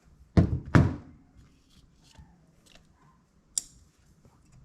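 Small metal ratchet parts clicking and knocking as the greased gear is pushed into the housing against the pawls: two loud knocks close together near the start, a few faint ticks, then one sharp click about three and a half seconds in as a gear tooth engages a pawl.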